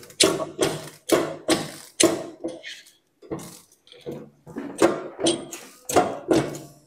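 Hand-lever hydraulic pressure test pump being worked, about two strokes a second with a short break about three seconds in, each stroke a brief squeaky rasp. The pump is raising the pressure in push-fit plastic pipework for a pressure test, aimed at 18 bar.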